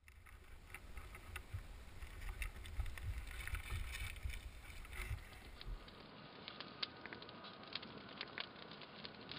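Water lapping, with wind rumbling on the microphone, filmed low over a lake. About six seconds in, it cuts to a campfire crackling and popping.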